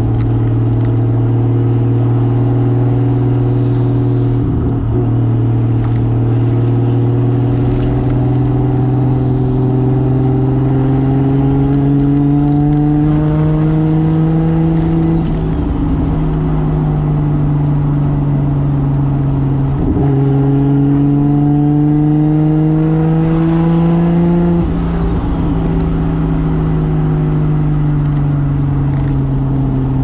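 Toyota 2JZ straight-six with a single turbo, pulling under gentle throttle, its note climbing slowly through each gear. The revs drop back at four gear changes: about four seconds in, around the middle, around twenty seconds and around twenty-five seconds.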